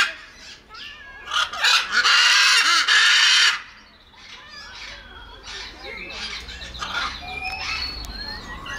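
Macaw screeching: a long, loud, harsh squawk, broken once, starting about a second in, then quieter chattering calls and short gliding whistles.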